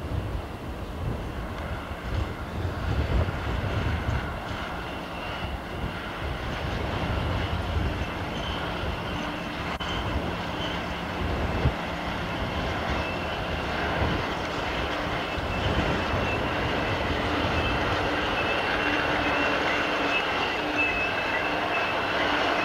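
Class 56 diesel-electric locomotive running past with a train of hopper wagons, its engine and rolling wheels a steady rumble. It grows a little louder in the second half as it comes close, with a steady high whine joining in.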